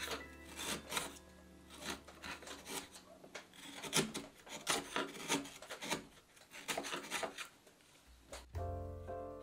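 Hand-pushed chisel paring cherry in a joint notch: a run of short, crisp scraping slices through the wood fibres, about three a second. Background music comes in near the end.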